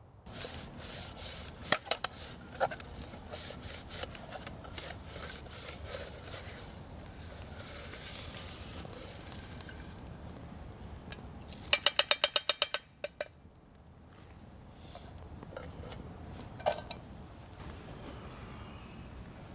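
Dry pine needles crackling and rustling as they are handled and bunched by hand, with a quick run of about ten sharp clicks a little past midway.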